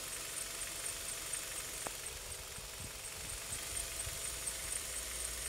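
KIA Carens engine idling steadily, with a faint regular high ticking and a single click about two seconds in.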